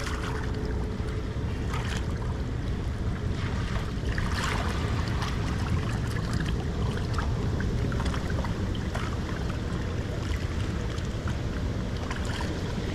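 Turbulent water rushing from a flowing spillway, with wind buffeting the microphone as a steady low rumble. Small, irregular splashes near the bank come and go as a snook is held in the water to revive.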